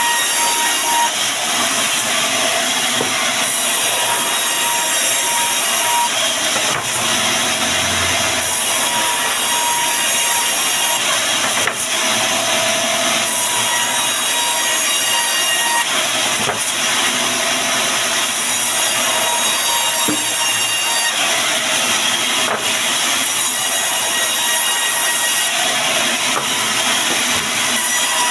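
Band sawmill running with its blade cutting through timber: a steady, loud noise with a thin whine that comes and goes.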